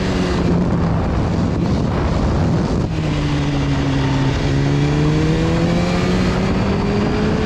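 BMW S1000RR inline-four engine running under way, heard over heavy wind rush on the on-board microphone. The engine note drops briefly about three seconds in, then climbs slowly as the bike pulls through the bend.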